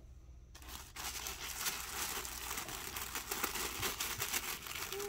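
Thin tissue paper crinkling and rustling continuously as hands handle a sticker-sealed tissue wrap, starting about a second in.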